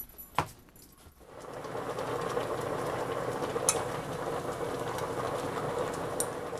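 Udon noodles at a rolling boil in an enamel saucepan on an electric cooktop: a steady bubbling that comes in about a second in, with two sharp taps as chopsticks stir the noodles.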